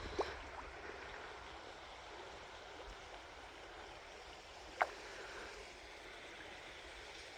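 Shallow creek water flowing softly, with a single short click a little past the middle.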